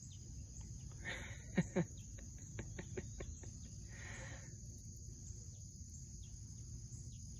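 Insects chirring steadily in the background. About a second and a half in, two short downward-sliding squeaks stand out as the loudest sounds, among a few light clicks.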